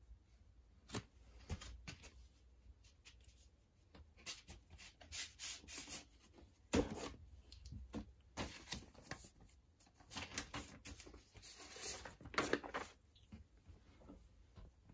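Cardboard record jacket and paper inner sleeve rustling and scraping as a vinyl LP is slid out, in uneven bursts with scattered light clicks and taps, the sharpest knock about seven seconds in.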